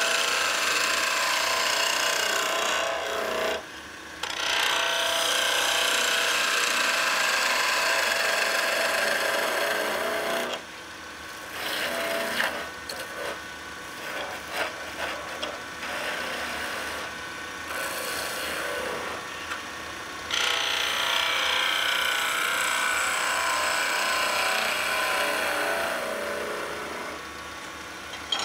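Turning tool cutting a spinning pine blank on a wood lathe, a hissing, shaving sound. It comes in long continuous cuts broken by brief pauses, with a stretch of short, intermittent light cuts in the middle.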